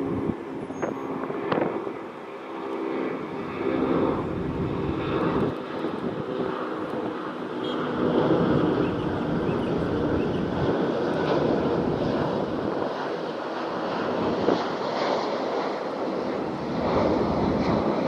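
Jet airliner engines running as a plane passes at the airport: a steady, loud rushing noise, with a few steady tones over the first several seconds.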